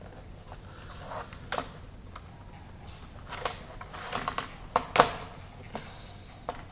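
Scattered light clicks and taps at a desk, a dozen or so at uneven intervals, with the sharpest click about five seconds in. These are the sounds of an equation being entered by hand.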